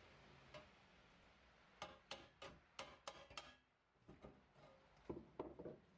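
Rusty cast-iron hibachi grate clinking and knocking against the grill's metal body as it is lifted out: a quick run of sharp metal clicks, a short pause, then a few more knocks near the end.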